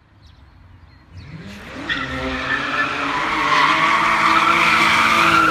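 Racing-car sound effect: an engine revs up, rising in pitch about a second in, then holds high revs, getting louder, with tyre squeal.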